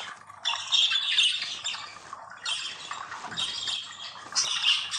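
A flock of small birds chirping and chattering together in dense, overlapping bursts.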